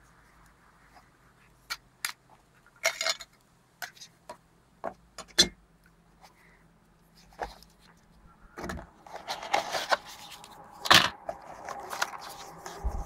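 Handling noise from unboxing a phone: scattered sharp clicks and taps, then from about two-thirds of the way in, continuous rustling and scraping of the packaging with a few louder knocks.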